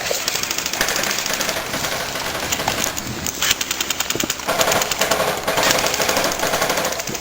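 Airsoft guns firing rapid full-auto bursts, a fast run of sharp clicks that goes on almost without pause.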